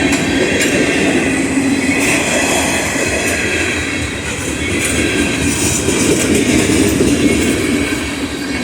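Freight train cars rolling past close by: a loud, steady rumble of steel wheels on rail with a few scattered clicks.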